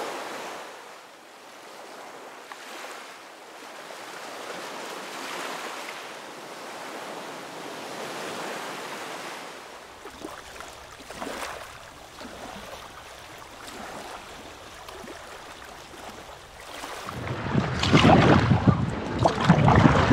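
Small waves lapping and washing over rocks, a soft swish that swells and fades every few seconds. About three seconds before the end, louder splashing of a kayak paddle in the water begins, with wind buffeting the microphone.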